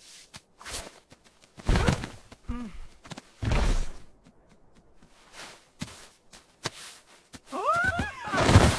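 Cartoon sound effects: a string of thuds and whooshes, followed near the end by a short cartoon character's cry that slides up and down in pitch.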